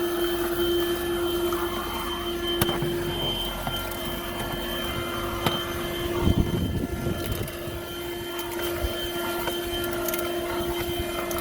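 Buture corded handheld car vacuum running with a steady high-pitched motor whine. Over it come a few sharp clicks and, about six seconds in, a short cluster of knocks as the floor nozzle works over the car floor.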